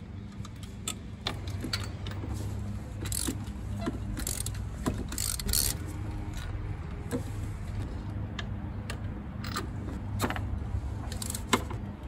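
Ratchet and spark-plug socket clicking and clinking irregularly as a stiff, over-tight spark plug is worked out of the cylinder head of a 1990 Jeep Comanche's six-cylinder engine. A steady low hum runs underneath.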